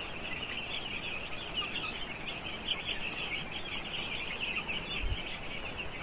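A large flock of twelve-day-old broiler chicks peeping continuously, a dense high-pitched chatter, with a brief low thump about five seconds in.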